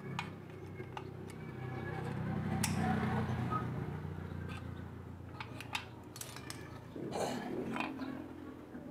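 Metal clicks and clinks of locking pliers working a rusted screw on an LPG stove burner, then the burner's rusty top unit being handled and lifted off. A low rumble swells and fades in the middle.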